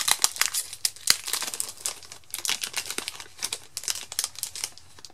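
Clear plastic shrink-wrap crinkling in quick, irregular crackles as it is peeled off a hardcover planner by hand.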